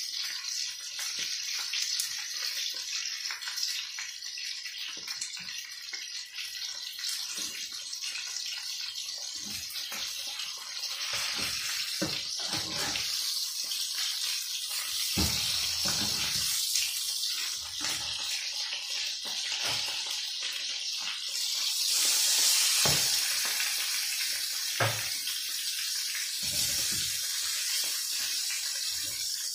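Pigeons and meat sizzling as they brown in a frying pan, a steady hiss with scattered clicks and knocks as tongs turn the pieces. The sizzle swells for a few seconds a little past the middle.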